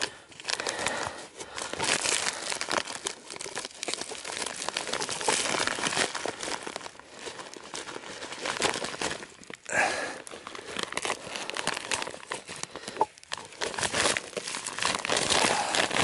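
Black plastic winter hive wrap (a bee cozy) crinkling and rustling irregularly as a gloved hand pushes and works against it, digging packed snow out from around the hive entrance.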